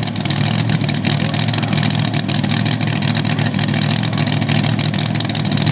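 Dodge Hemi V8 of a super modified 2WD pulling truck idling loud and steady, holding an even pitch without revving.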